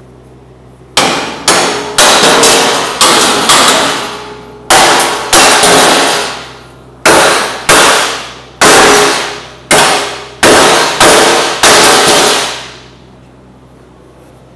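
Hammer striking the steel slats and frame of a torch cutting table: about fifteen loud, irregular metal blows over some eleven seconds, each ringing out briefly, then they stop.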